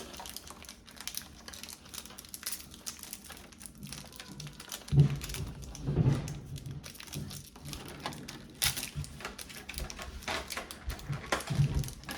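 Cardboard and plastic packaging of a Pokémon card collection box being handled: a steady run of small clicks and rustles, with two louder bumps about five and six seconds in.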